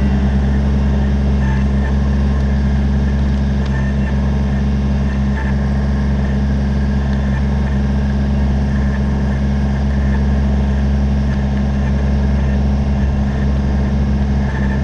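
Kubota BX23S compact tractor's three-cylinder diesel engine running steadily.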